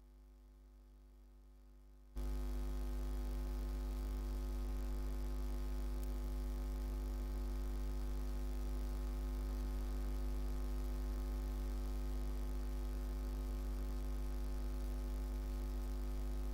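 Steady electrical mains hum with a deep buzzing tone and overtones, which jumps suddenly much louder about two seconds in and then holds steady.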